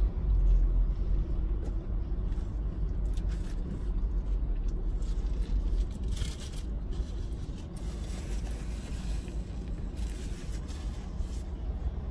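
Steady low rumble of a car idling, heard from inside its cabin.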